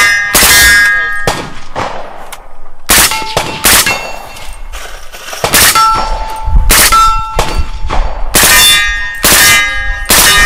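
AR-style rifle fired in slow, steady shots, about ten in all, most followed by the clear ringing clang of bullets striking steel targets downrange.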